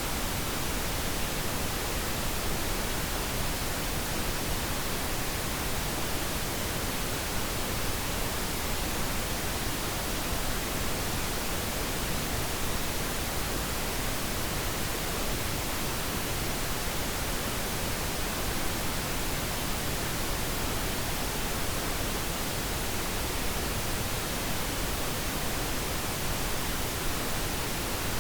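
Steady, unchanging pink noise: an even hiss spread across the whole range of pitch, played as a sleep aid for a baby.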